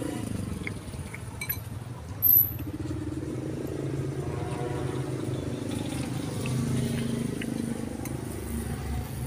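Road traffic passing: vehicle engines droning, swelling and fading, with a few faint clinks of a spoon against a bowl and one short, high-pitched squeak a little over two seconds in.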